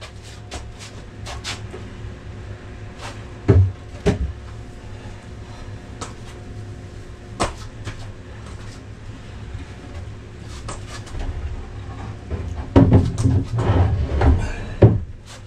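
White melamine cabinet carcasses and panels being handled and set in place: scattered clacks and knocks of board against board and floor. The loudest thump comes about three and a half seconds in, and a run of heavier bumps comes near the end, over a steady low hum.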